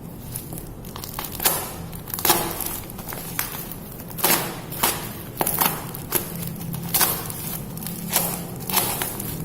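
Packaging being handled and opened by hand: a string of scattered taps, knocks and crinkles of cardboard and plastic wrap.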